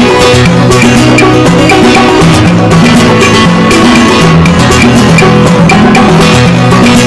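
Background music with percussion and a steady beat.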